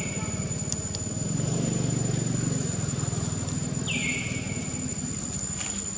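A small engine running steadily, louder for a second or two around the middle, under a constant high insect drone. A short high call falls in pitch about four seconds in.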